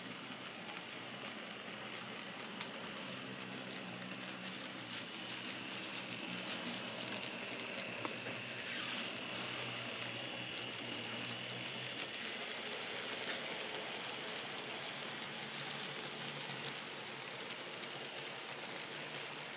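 N-scale Kato diesel locomotives running on track: a steady high motor whine over a hiss of wheels and fine rapid clicking on the rails, louder in the middle as the train passes close by.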